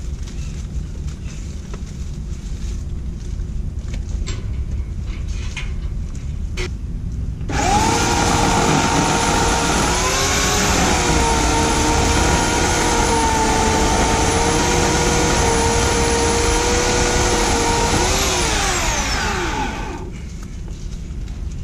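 Homelite 16-inch corded electric chainsaw starting suddenly about seven seconds in and running with a steady high whine for about ten seconds, its pitch wavering a little as the chain cuts into brush. It is then released and spins down with a falling whine.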